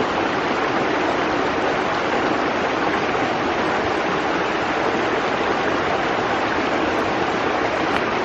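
River water rushing over rocks and boulders: a steady, even rush with no pauses.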